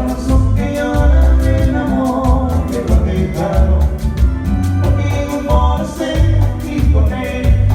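Latin dance music with a singing voice and a heavy bass beat, played loud through a sonido's DJ sound system during a sound check.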